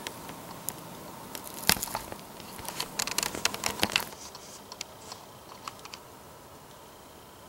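Irregular crinkling and clicking handling noise close to the microphone, heaviest in the first four seconds, then a quiet steady background.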